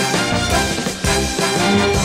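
Instrumental opening of a Swedish pop song, full band with a steady drum beat, before the vocal comes in.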